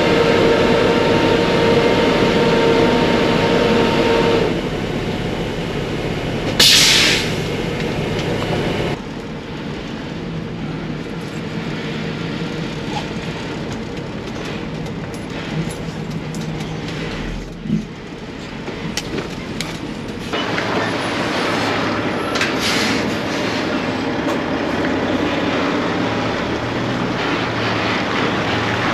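Semi truck's Cat C15 diesel running while the end dump trailer's bed comes down slowly. A steady whine stops about four seconds in, and a short sharp air hiss comes about six and a half seconds in.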